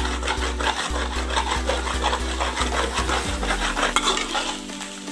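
Metal spatula scraping and stirring egg bhurji in a hot kadai, in repeated strokes against the pan while the eggs fry and set.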